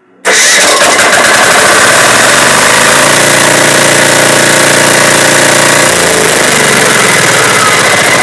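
An engine starts suddenly on a newly repaired starter solenoid and keeps running very loudly and steadily: the repair has worked.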